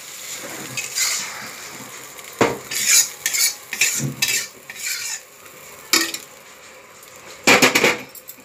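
Steel ladle scraping an iron kadhai and knocking against it and the rim of an aluminium pressure cooker while fried onion-tomato masala is scooped into cooked chana dal, with a light sizzle from the hot pan. A single sharp knock comes about two and a half seconds in and another about six seconds in, and the loudest run of rapid clanks near the end as the masala is stirred into the dal in the cooker.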